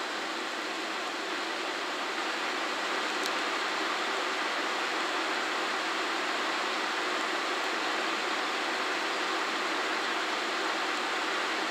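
A JR Shikoku 1000-series diesel railcar running slowly across the station tracks some distance off, heard as a steady, even rush with no clear engine note, getting slightly louder about two seconds in.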